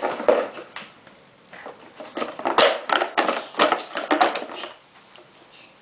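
Stacked toy pieces being knocked down, a rapid clatter of small hard pieces striking each other and the floor: a short burst near the start, then a longer run of clattering from about two seconds in that stops shortly before the end.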